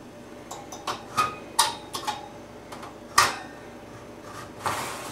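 Metal clinks and clanks of an oven rack and a metal cake pan being handled as the rack is pulled out: several sharp knocks, the loudest about three seconds in, then a short scrape near the end.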